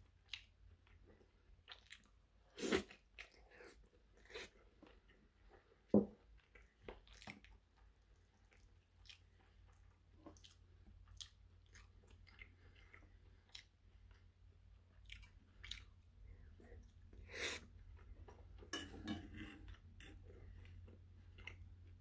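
Close-miked chewing and wet mouth sounds of someone eating steak, egg and rice, with scattered small clicks and two sharper knocks of a metal fork against the frying pan, about 3 and 6 seconds in.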